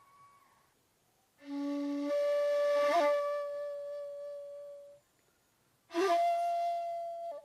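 Shakuhachi, the Japanese end-blown bamboo flute, playing slow held notes with breathy attacks. A short low note about a second and a half in leaps up an octave to a long held note, which gets a breathy accent and a pitch flick in the middle; after a short pause a higher held note begins near the end.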